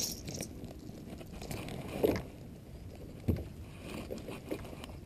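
Handling noises on a plastic fishing kayak as a small bass is lifted aboard by hand: scattered knocks and scrapes, two louder thumps about two and three seconds in.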